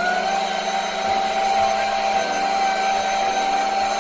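A small electric motor running with a steady whine over a loud hiss. It rises slightly in pitch at the start as it comes up to speed, then holds an even pitch.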